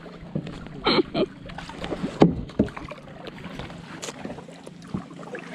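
Kayak paddling in a calm channel: paddle blades splashing and water dripping, with a few short sharp knocks scattered through.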